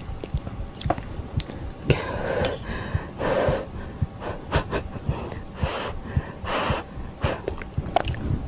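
Close-miked eating of ramen and dumplings: a steady run of wet chewing and mouth clicks, with three short breathy rushes of air about two, three and six and a half seconds in.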